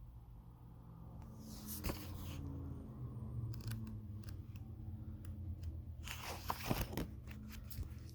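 Handling noise: two bouts of crackly rustling, about a second and a half in and again about six seconds in, with scattered sharp clicks between and after, over a low steady hum.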